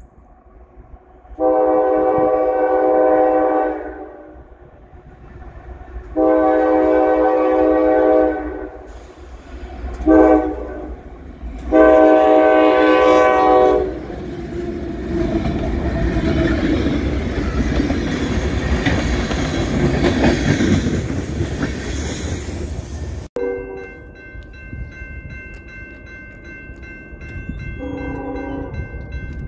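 CSX GE AC44CW freight locomotive's air horn sounding the grade-crossing signal: long, long, short, long. The locomotives and tank cars then pass close by with a steady rumble of wheels on rail. After a sudden cut, a fainter horn sounds near the end.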